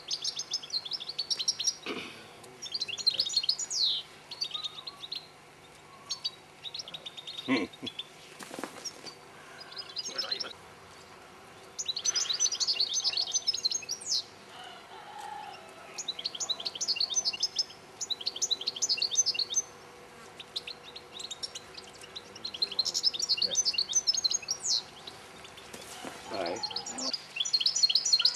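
European goldfinch song: repeated bursts of rapid, high, tinkling twitters, each a second or a few seconds long, with short pauses between them.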